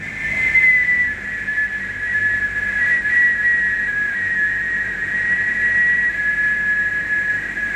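A man whistling one long, steady high note.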